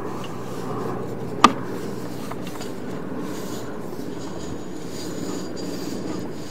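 Sewer inspection camera being pushed steadily down a 3-inch roof vent pipe: a continuous rumbling scrape of the camera head and push rod along the inside of the pipe, with one sharp click about a second and a half in.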